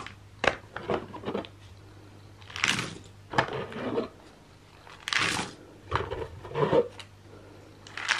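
Cardboard jigsaw puzzle pieces tipped and shaken out of plastic sorting trays into a cardboard box. They come in several separate pours and clusters of clicks a second or two apart, over a faint steady hum.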